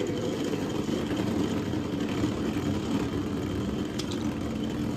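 Two Beyblade Burst tops, Zyphoid Excalibur and Perfect Belial, spinning in a plastic stadium: a steady whirring rattle, with no clash between them and a faint tick about four seconds in.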